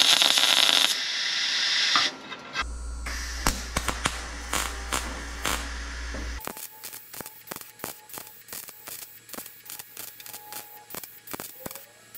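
MIG welder on thin body sheet steel: a loud, steady crackling hiss of a run of weld for about the first second, then quieter spells of short tack welds heard as scattered clicks and sputters.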